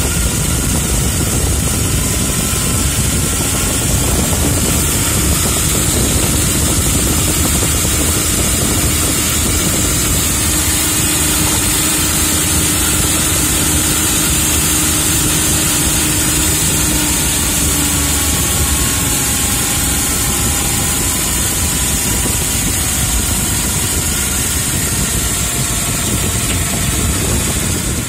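CNC lathe turning a large metal ring, the tool cutting under flood coolant: a steady machine hum with a high hiss and a few faint steady tones.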